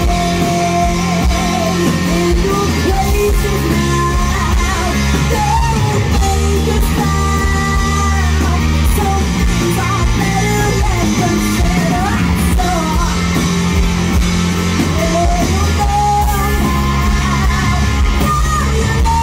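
Live rock band playing: a woman sings a wavering melody into the microphone over two electric guitars, bass guitar and a drum kit.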